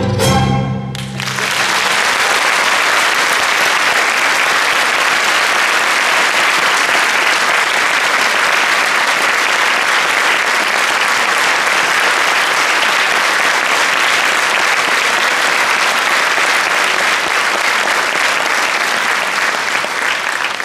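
An orchestra's closing chord with solo violin breaks off about a second in, followed by steady audience applause.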